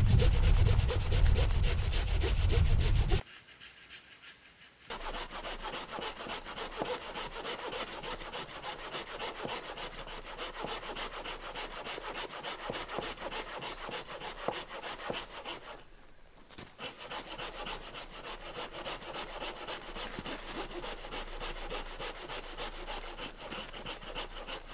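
Hand saw cutting back and forth through the trunk of a dead standing tree in quick, even strokes. This is a felling cut by hand, sawing stopping briefly about three seconds in, then resuming steadily.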